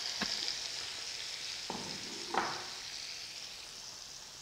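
Tomato, ginger and green-chilli paste sizzling in hot oil in a non-stick frying pan, the hiss slowly dying down. A wooden spatula stirs it, scraping twice about two seconds in.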